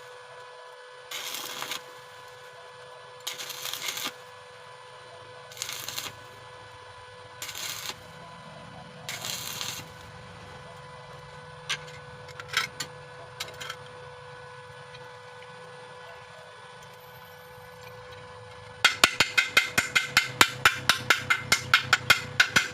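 Stick (arc) welder laying short arcs on very thin metal with an oversized 2.6 mm rod: about five separate crackling bursts, each under a second, a short pause between each. Near the end a fast, loud run of sharp taps starts, about eight a second.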